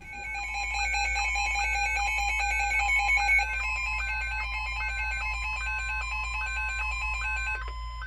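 Several NOAA weather radios sound their alert alarms at once for a Special Marine Warning: overlapping electronic tones, with a two-note beep repeating a little faster than once a second under steady tones. Another steady tone joins about three and a half seconds in, and most of the tones cut off just before the end.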